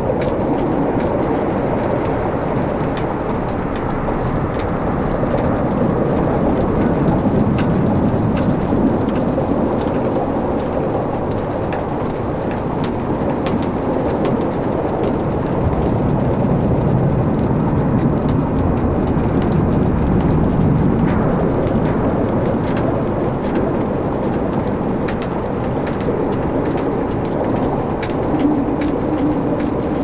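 Wood logs burning in a fireplace: a steady low rumble of flames with scattered sharp crackles and pops.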